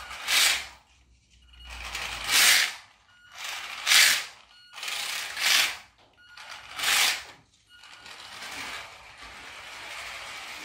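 Small brushed motor of a radio-controlled toy car whirring through its gears in five short surges about one and a half seconds apart, then a fainter steady run near the end as the car drives away across the floor on its hard plastic wheels.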